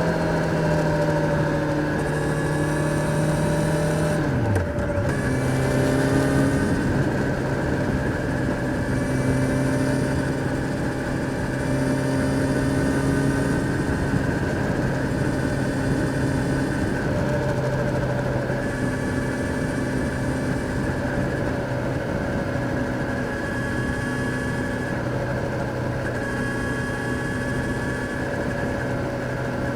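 Kawasaki Z900's inline-four engine on the move. Its revs drop sharply about four seconds in, then hold at a steady lower pitch, with a constant rush of noise underneath.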